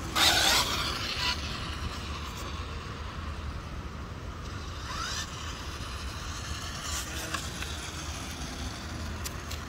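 Arrma Felony 6S RC car running. There is a loud burst of noise right at the start and a short rising motor whine about five seconds in.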